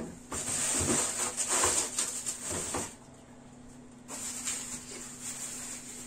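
Rustling of plastic grocery packaging with light knocks as groceries are handled and put away. It stops about three seconds in and starts again more faintly a second later.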